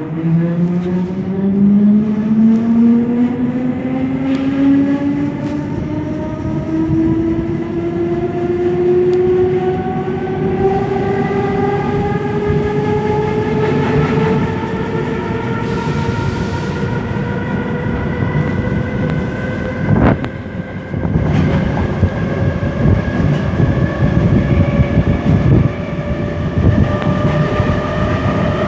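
Berlin S-Bahn class 485 electric train accelerating away from a station: its traction drive whines, rising steadily in pitch, steeply at first and then levelling off as speed builds, over the rumble of the wheels on the rails. A single sharp knock comes about twenty seconds in.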